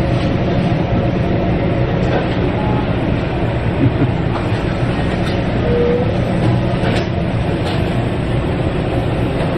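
Steady, loud, low rumbling background noise of a restaurant food court, with a few faint clicks.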